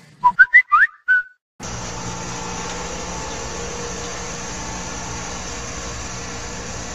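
A few short rising whistle-like chirps, a moment of silence, then a steady outdoor background hiss with a faint hum, as picked up by a phone's microphone.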